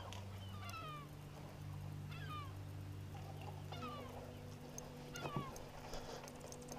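Gulls calling: a string of short mewing cries, each sliding downward in pitch, over a faint low steady hum.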